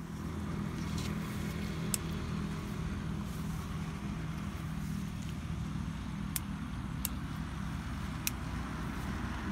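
A steady low motor hum, like an engine running, with a few sharp clicks now and then.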